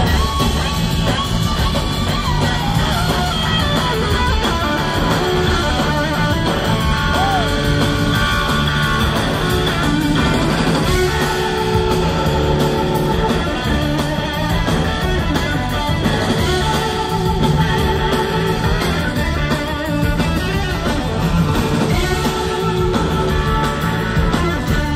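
Live blues-rock band playing a loud instrumental jam: electric guitar over keyboards, bass guitar and two drum kits, with the guitar's pitch gliding and wavering.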